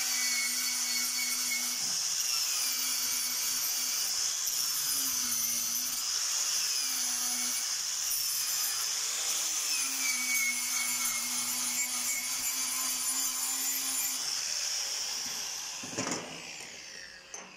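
Angle grinder with a wire wheel brushing slag off a flux-core weld bead on steel. The motor whines high and steady, its pitch wavering as the wheel is pressed on the work. About fourteen seconds in it is switched off and winds down with a falling whine, and there is a single knock shortly after.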